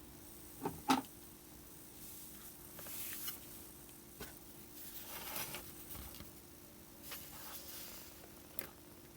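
Small clicks and soft rustling and scraping of tools and a circuit board being handled on a workbench during soldering, with two sharp clicks just under a second in and another near the end. A faint steady hum lies beneath.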